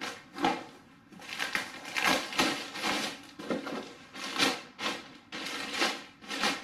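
Clear plastic bag wrapped around a tube power amplifier crinkling and rustling as it is handled and pulled, in a string of irregular bursts.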